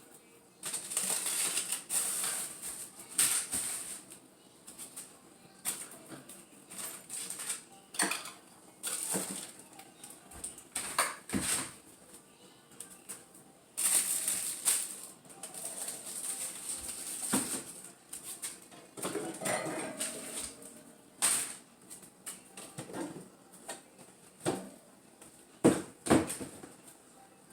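Food items and containers being pulled out of a crowded refrigerator and set down, making irregular knocks, clinks and rustling.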